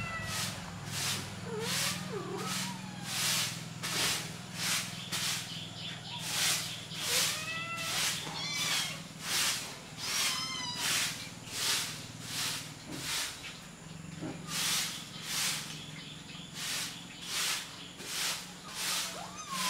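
Kittens mewing: short, high, rising-and-falling calls several times, bunched in the middle and once near the end. Under them run a steady low hum and a high hiss that pulses a little under twice a second.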